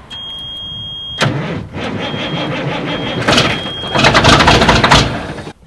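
Heavy diesel truck engine being cranked over by the starter on a cold start. A steady high tone sounds for about the first second, then the cranking runs rhythmically and grows louder about three seconds in, before cutting off suddenly near the end.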